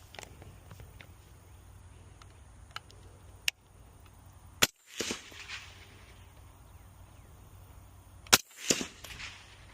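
Two suppressed .308 rifle shots from an HK MR762 fitted with a Diligent Defense Enticer L suppressor, about four seconds apart, each followed by a short trailing echo.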